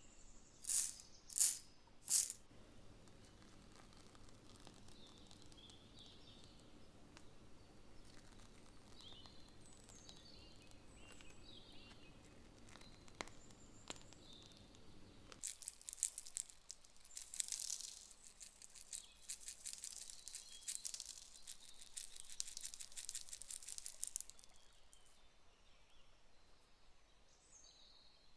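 Chocolate sprinkles rattling as they are shaken out over whipped-cream-topped dessert cups, a dense patter of tiny clicks lasting about nine seconds in the second half. Three short swishes come near the start.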